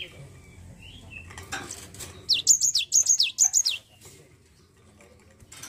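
Cinereous tit (gelatik batu) singing a quick run of about six sharp, high whistled notes, each dropping steeply in pitch, lasting about a second and a half. A few light clicks come just before the song.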